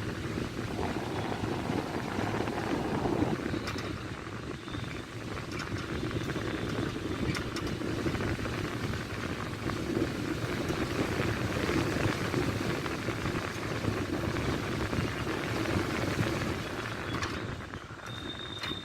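Road traffic ambience: a steady rumble of vehicle noise, with a faint high tone coming in near the end.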